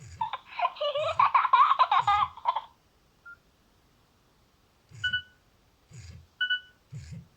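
Nokia N70 mobile phone playing an alert tone through its speaker: a busy, warbling, chattering sound for about two and a half seconds, then two short beeps a few seconds later.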